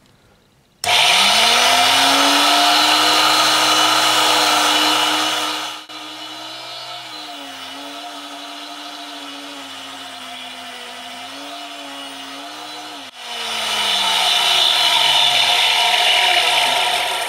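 Tool and cutter grinder's motor spinning up about a second in, its wheel grinding a carbide blank with a loud high hiss while the angle of a D-bit is rough-ground. The hiss drops away abruptly for several seconds, leaving the grinder's steady hum. Then the loud grinding returns and fades out near the end.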